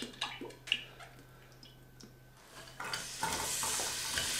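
Chopped onions tipped into hot olive oil in a stainless steel pot, starting to sizzle steadily about three seconds in after a few faint clicks.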